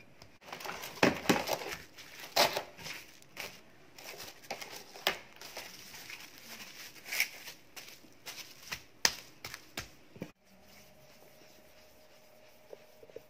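Clear plastic cling film crinkling and crackling as it is pulled and pressed around a ball of dough, with many sharp crackles. It stops suddenly about ten seconds in, leaving a faint steady hum and a few small clicks.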